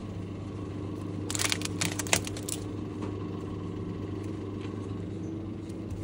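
Steady low hum of supermarket refrigerated display cases. Partway through comes a short burst of crackling and clicks lasting about a second.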